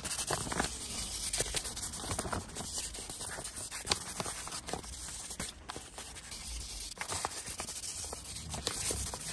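Fine 2000-grit sandpaper rubbed by hand over a chrome bowtie emblem, a scratchy hiss in quick, irregular strokes. The chrome is being scuffed so the paint will bond.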